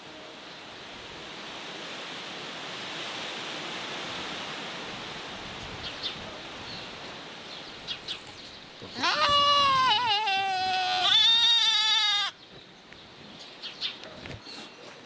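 A goat bleats loudly about nine seconds in: one wavering bleat of about two seconds, followed straight away by a shorter, higher one. Before it, a steady rushing hiss of a small stream of flowing water.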